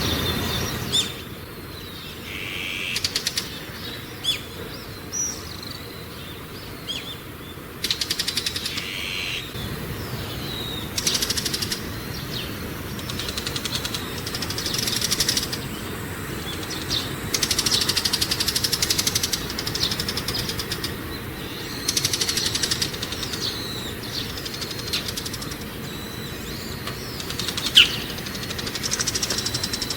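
Wild songbirds singing and calling: short, high down-slurred chirps mixed with fast, buzzy rattling trills that repeat every few seconds, and one sharp louder call near the end.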